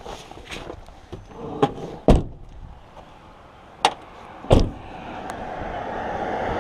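A few sharp thumps, the loudest about two, four and four and a half seconds in, then the road noise of an approaching car growing steadily louder over the last second and a half.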